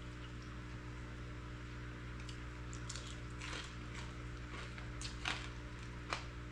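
Quiet eating at a table: a man chewing fish and picking at food on a plate, with a few faint soft clicks, over a steady low hum.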